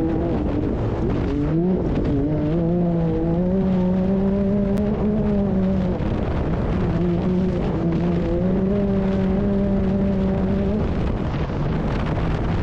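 Can-Am Maverick R's turbocharged three-cylinder engine running hard, heard from the cockpit, its pitch dropping and climbing again a few times as the driver works the throttle.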